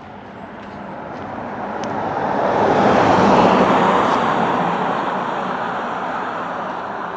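A car passing by on the road: tyre and engine noise swells to its loudest about three seconds in, then fades slowly as it moves away.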